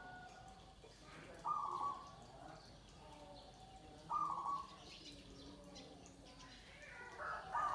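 Perkutut (zebra dove) cooing: three phrases, each a high note falling into a run of lower staccato notes, repeated about every three seconds.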